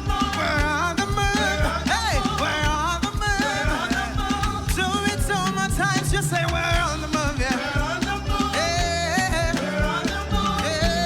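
Live upbeat worship band music: a fast dance rhythm on drums and bass with keyboard, and wordless melodic lines from singers or instruments over it.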